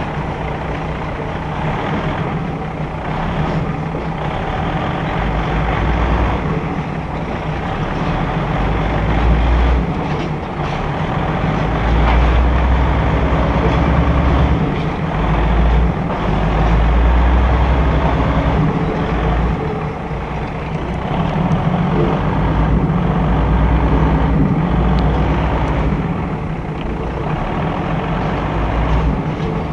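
Passenger train running along the track, heard from an open window of the car: a steady drone and the rumble of the running gear. Low gusts of wind rumble on the microphone and swell and fade every few seconds.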